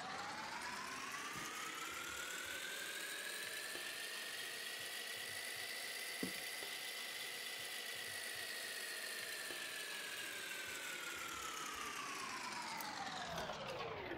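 Synthetic whirring sound effect whose pitch rises slowly for about seven seconds and then falls back just as slowly, with one faint click near the middle.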